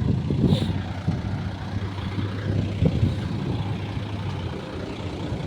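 Heavy diesel engine of construction machinery running with a steady low drone that eases off near the end, with a few faint knocks.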